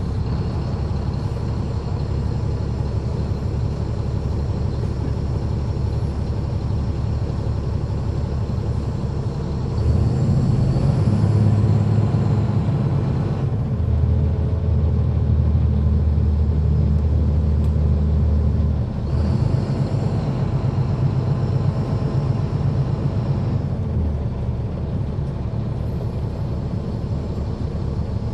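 A Caterpillar C13 ACERT diesel engine in a city transit bus, heard from the rear seats inside the cabin as the bus drives. It runs with a steady deep drone that grows louder under load for several seconds in the middle, then eases back.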